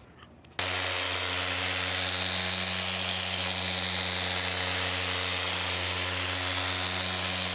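Handheld power polisher with an orange foam pad running steadily against a truck's side window glass, buffing off hard water spots. It switches on about half a second in and holds one speed, a steady motor drone with a thin high whine over it.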